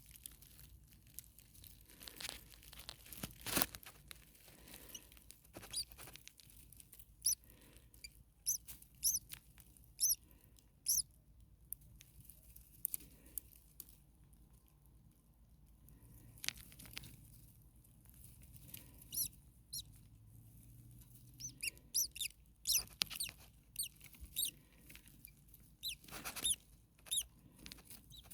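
Starlings giving short, high-pitched squeaky calls, singly and in quick runs, with brief rustling and scratching in between.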